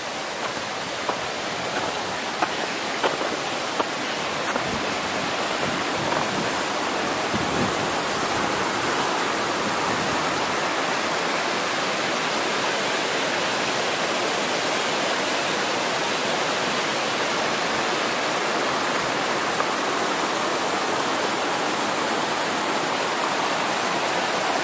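Steady rush of a mountain brook running high, growing a little louder over the first several seconds and then holding steady. A few light clicks sound in the first four seconds.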